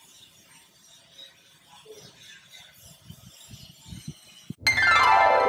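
Faint scattered clicks and low knocks, then about four and a half seconds in, loud music starts suddenly with many tones gliding down in pitch together.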